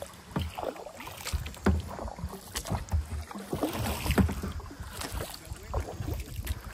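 Kayak paddling: a double-bladed paddle dipping into calm water on alternating sides, with irregular splashes and drips off the blades.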